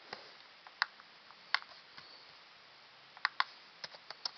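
Light, irregular clicks and taps, about ten of them, over a faint hiss.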